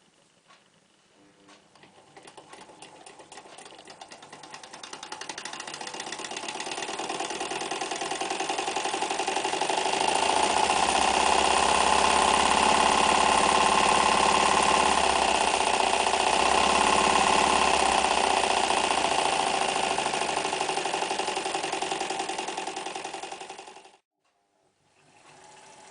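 Necchi Lycia electric sewing machine running, its needle mechanism making a rapid, even chatter. It speeds up gradually over several seconds, runs fast and steady, eases off a little and then stops abruptly near the end.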